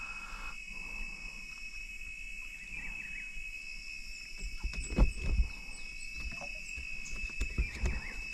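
Insects calling in a steady high continuous drone. A few short knocks and bumps come about five seconds in and again near the end; the first ones are the loudest sounds.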